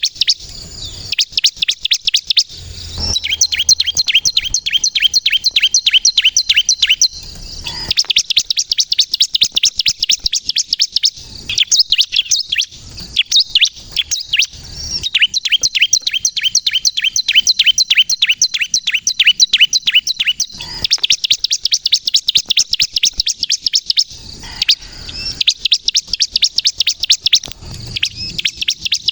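Bar-winged prinia (ciblek kristal) singing vigorously: long runs of rapid, sharp, evenly repeated high chirps, several seconds each, broken by short pauses. This is the bird in full song, used as a lure call for other prinias.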